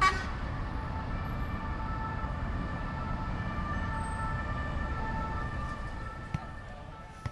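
Dense, steady city traffic rumbling around a large roundabout, with an emergency siren and car horns sounding in held tones over it. The traffic fades down near the end.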